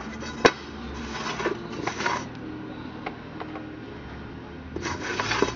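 Metal chainsaw parts being handled: a sharp click about half a second in, then scraping and rubbing twice, over a faint steady hum.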